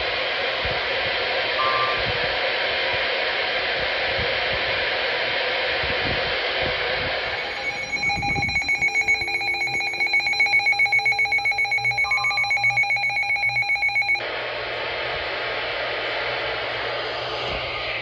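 Weather radio giving a steady hiss, then about eight seconds in its alert alarm goes off: a loud, rapidly pulsing high beep that stops abruptly some six seconds later. The alarm signals a tornado warning.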